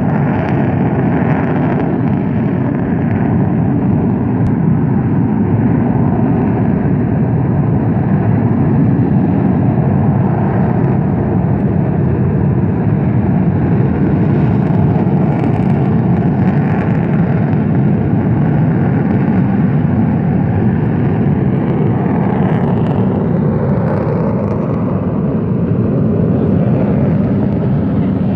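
Steady rumbling roar from the active crater of Mount Bromo, volcanic gas venting from the crater floor. It is loud and unbroken throughout.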